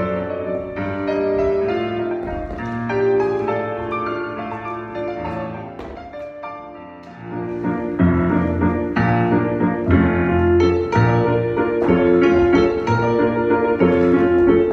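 Classical solo piano music. It thins into a quieter passage partway through, then comes back fuller and louder with strong bass chords for the rest.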